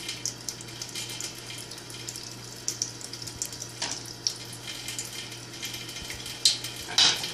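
A thin stream from a kitchen faucet running and splattering into the sink, broken by short irregular splashes as a cat paws at the stream. A brief louder noise comes near the end.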